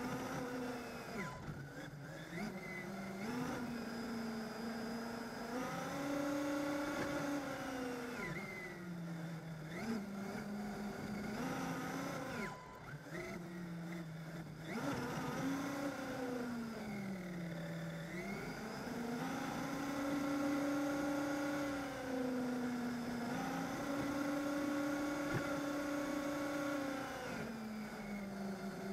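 The electric motor and drivetrain of a radio-controlled Traxxas car whine, picked up close by a camera mounted on the car. The pitch rises and falls several times as the car speeds up and slows down, and holds high for long stretches.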